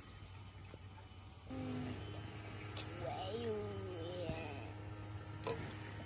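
Steady high-pitched insect chorus that comes in about a second and a half in and then holds, with a short wavering voice in the middle.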